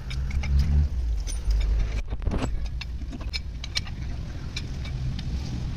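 Irregular metallic clicks and clinks of hand tools, a wrench and socket working the flywheel bolts on an engine being rebuilt, over a low rumble.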